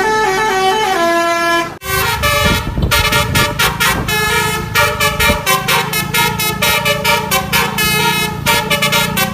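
Basuri telolet bus horn, a multi-tone air horn, playing a stepped melody of held notes. After a short break about two seconds in, it plays a faster, busier run of notes over a steady low hum.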